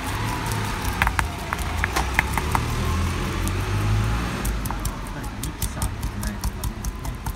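Wooden pestle grinding basil and pine nuts against a marble mortar: a steady low rumbling scrape, with a few sharp clicks about a second to two and a half seconds in.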